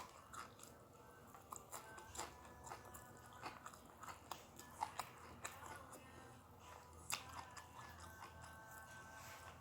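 A person chewing food close to the microphone, with scattered soft crunches and mouth clicks.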